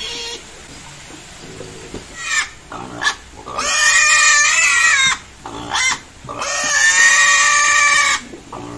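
Freshly castrated piglet squealing as it is handled: a few short squeals, then two long, loud, high-pitched screams of about one and a half and two seconds.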